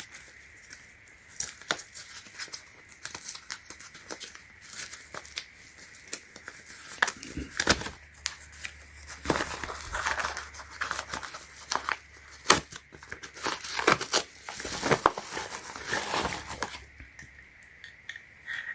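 Packaging being torn open and crinkled by hand, with irregular sharp crackles and rustles that grow busier in the second half and die down near the end.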